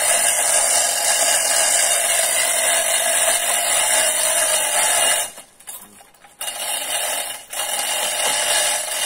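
Chainsaw running steadily at high revs. The sound drops away almost to silence for about a second partway through, then dips briefly once more.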